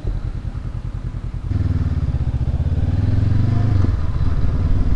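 2019 Honda CB500X's parallel-twin engine idling at a stop, then pulling away about a second and a half in, louder with a steady engine note under throttle. The engine note drops near the end.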